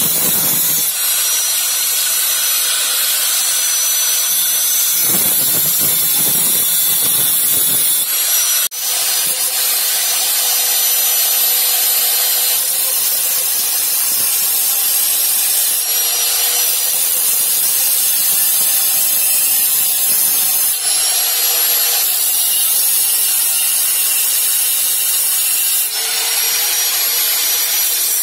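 Electric angle grinder cutting and grinding the profile of a thin steel knife blank, about 1 mm thick, throwing sparks. A steady high whine over a grinding hiss, with the whine shifting in pitch several times and one brief break about nine seconds in.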